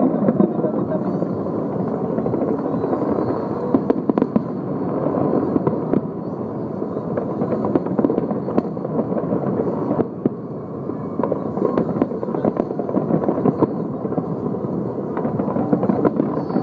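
Fireworks display bursting and crackling without a break, many rapid sharp cracks and bangs piling on one another, with a few louder bangs standing out.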